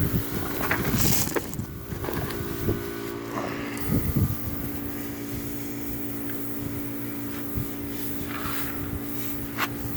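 A steady low machine hum runs throughout, with scattered knocks and short scraping sounds of hand work, most of them in the first half.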